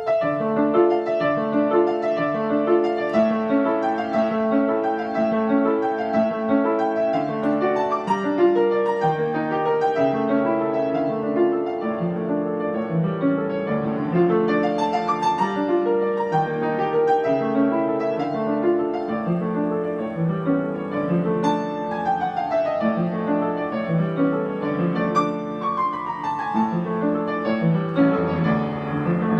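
Piano being played, starting abruptly: a busy stream of repeated notes in the middle and bass, with two quick downward runs in the last third.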